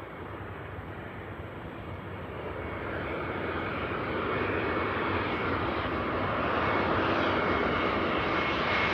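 Jet engines of an Air China Airbus A320-family airliner on final approach, a steady rushing noise that grows louder as the plane comes closer, with a faint high whine joining in near the end.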